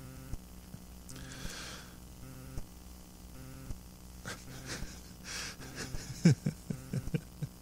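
A man's breaths and small mouth clicks close to the microphone, with two soft breaths and a run of clicks near the end, over a faint steady hum.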